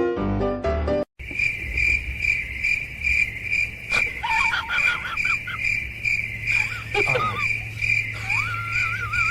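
Cricket chirping steadily in a high, even pulse about three times a second, with faint wavering high-pitched cries over it in the second half. Piano music plays briefly at the start and then cuts off.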